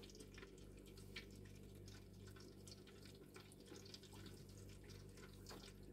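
Faint, irregular crackling and popping of hot oil in an electric deep fryer as battered, breadcrumbed pollock fillets fry.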